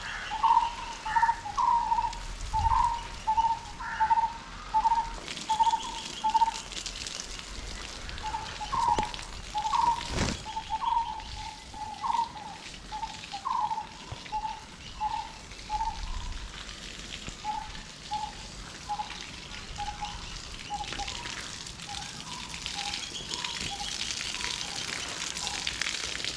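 A bird calls one short note over and over, roughly every half second, growing fainter after the middle. There is a single sharp knock about ten seconds in, and water sprays from a garden hose onto plants near the end.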